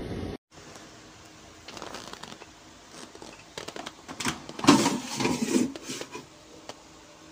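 Plastic basket drawer of a Simplus air fryer being pulled open by its handle: scraping, clicks and knocks with some paper rustling, loudest about four and a half seconds in.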